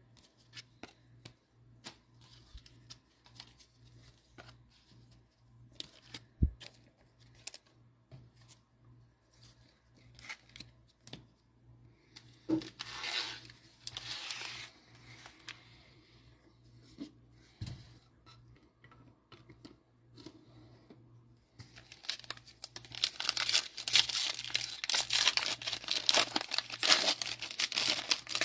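Foil Panini Mosaic football card packs being handled and torn open. Light taps and crinkles come first, then a burst of crinkling about thirteen seconds in, and loud continuous foil crinkling and tearing over the last six seconds as a pack is ripped open.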